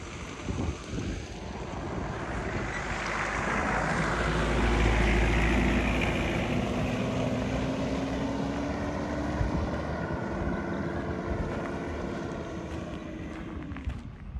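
An SUV drives past on a gravel road: engine and tyre noise swell, peak about five seconds in, then fade as it drives away, the engine note falling slowly.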